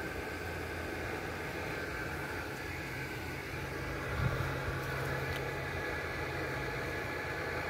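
Steady low outdoor background rumble, with a low engine-like hum joining about three and a half seconds in and fading out near the end, and a single soft thump a little after four seconds.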